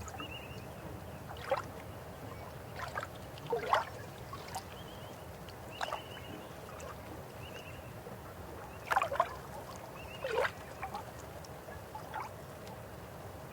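River water flowing with a steady rush, broken by irregular sharp gurgles and plops, the loudest at about 1.5, 4 and 9 seconds in.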